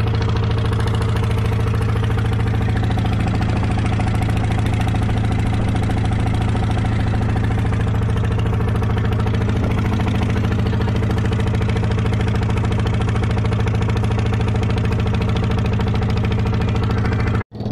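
Boat engine running at a steady speed under way, a constant low drone with an even rushing noise over it. The sound cuts out abruptly for a moment near the end.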